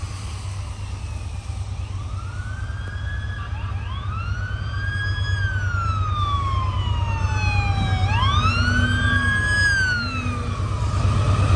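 Emergency vehicle siren wailing: slow rising and falling sweeps, joined by a second overlapping wail about four seconds in, over a steady low rumble.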